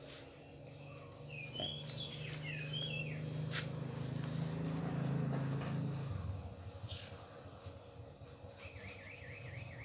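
A steady high-pitched insect trill, with short chirping calls near the start and again near the end, over a low hum that fades out about six seconds in; two sharp clicks in between.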